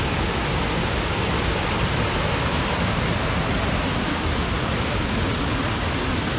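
Kuang Si waterfall: a steady, even rush of falling water with no change in level.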